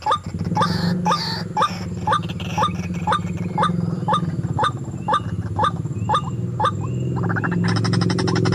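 White-breasted waterhen calls, a short rising note repeated evenly about twice a second over a steady low hum, as used to lure the bird. The calls stop near the end, and a dense buzzing sets in.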